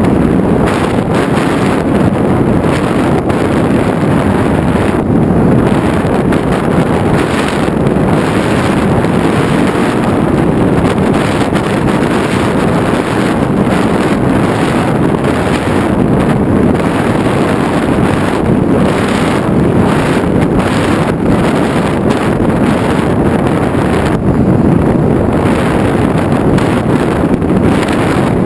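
Loud, steady rush of air over the microphone of a camera carried on a flying FPV model aircraft.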